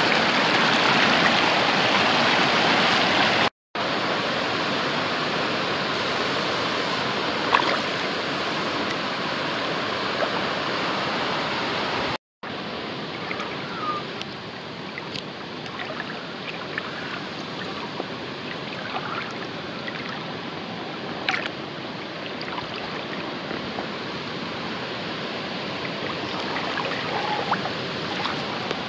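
Shallow river water rushing steadily around the legs and hands of someone standing in the current, louder in the first few seconds. The noise cuts out briefly twice, and a few sharp knocks and small splashes sound over it.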